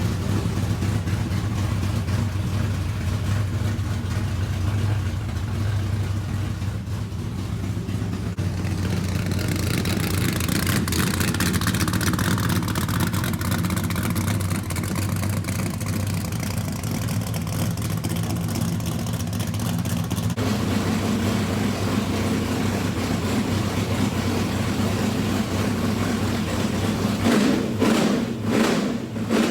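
A motor running steadily with a low hum, its sound swelling for a few seconds around ten seconds in and shifting about twenty seconds in, with a few short bursts near the end.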